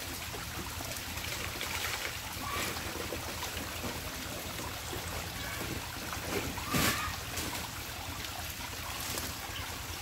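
A small waterfall's thin flow trickling and splashing over rock, a steady watery hiss. A brief knock sounds about seven seconds in.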